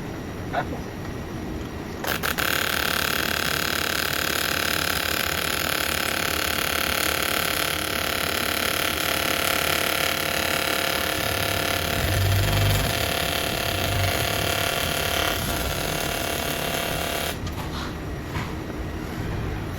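TIG welding arc on stainless steel, struck about two seconds in: a steady buzzing hiss that holds for about fifteen seconds and cuts off sharply near the end. A few low knocks come partway through.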